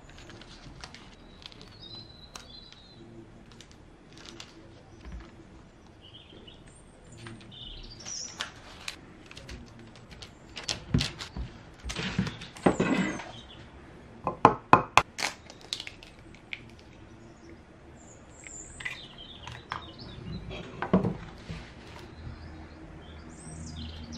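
Birds chirping, with scattered sharp taps and knocks from puff pastry being worked by hand on a paper-lined baking tray. The knocks are loudest in a cluster from about 11 to 15 seconds in and once more near 21 seconds.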